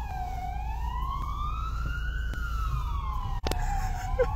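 Police car siren wailing, its pitch sweeping slowly up for about two seconds and back down for about two, heard from inside a car over a steady low rumble, with a brief click about three-quarters of the way through.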